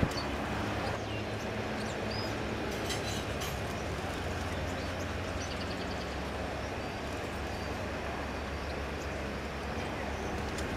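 Steady low rumble of city background noise, like distant traffic or machinery, with a few faint, short bird chirps over it.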